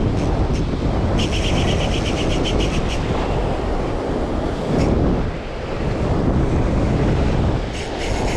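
Wind buffeting the microphone over surf washing on the rocks, with bursts of rapid, even ticking from a Ceymar C35 spinning reel as its handle is cranked to retrieve the line: one burst about a second in lasting nearly two seconds, another near the end.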